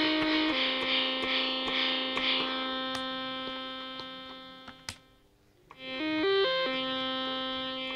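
Homemade two-Arduino digital synthesizer (Mozzi library) playing sustained notes. The brightness wobbles in the first couple of seconds, then a held note fades out about four seconds in. A click follows near five seconds, then a quick run of stepped notes and another held note from about six seconds.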